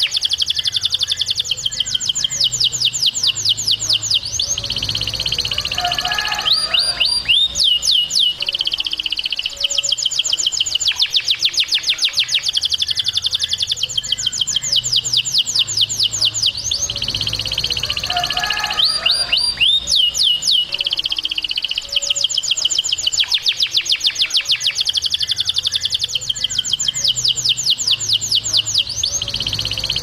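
Canary singing: long, fast trills of rapidly repeated high notes, broken now and then by short runs of sharply falling notes, the phrases following one another without a break.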